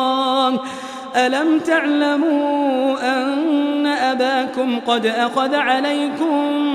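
A male Qur'an reciter's voice in melodic tajwid recitation, drawing out long, ornamented notes, with a brief pause about half a second in.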